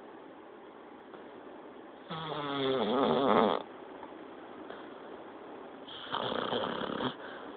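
A sleeping Labrador retriever snoring loudly. Two long snores come a few seconds apart, the first louder, with a wavering, buzzing pitch.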